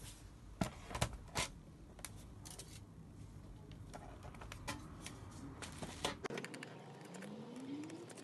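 Clicks and taps of plastic and metal laptop parts being handled during a battery replacement. Three sharp clicks come close together about a second in, followed by lighter scattered ticks.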